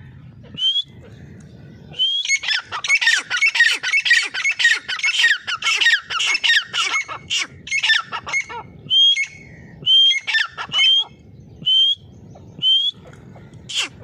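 Grey francolin calling: a dense run of shrill, overlapping calls for several seconds, then separate short calls about once a second.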